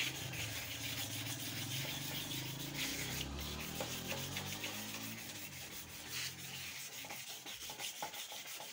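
600-grit wet sandpaper rubbed back and forth by hand over a motorcycle's plastic headlight lens: a continuous scratchy sanding sound made of quick repeated strokes as the yellowed surface layer is taken off.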